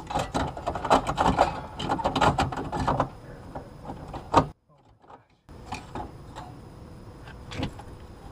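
Air conditioner pull-out disconnect being handled and pushed back into its box: metal clicking and rattling for about three seconds, then one loud snap about four seconds in as it seats, followed by a second of near silence.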